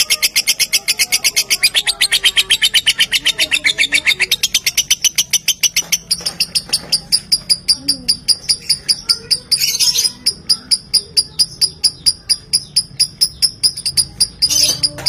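Lovebird's long ngekek, the trill used as bait to get other lovebirds singing: a rapid, unbroken string of sharp, high chattering notes, about ten a second, slowing to about six a second from about six seconds in. Two brief harsher notes break in, near ten seconds and near the end.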